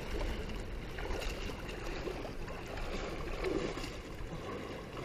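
Shallow stream water swishing and lapping around the legs of people wading in it, over a low rumble of wind on the microphone.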